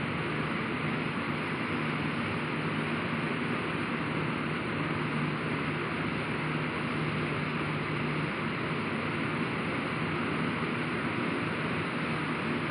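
Steady, unchanging rushing noise with a faint high-pitched whine above it. No distinct sound stands out.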